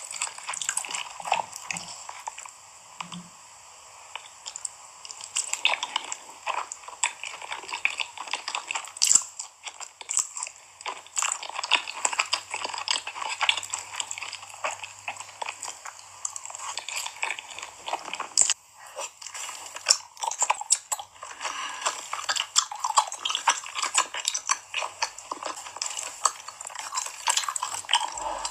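Close-miked eating: a person biting and chewing crunchy food, a dense run of small crackles and clicks with a short lull a few seconds in.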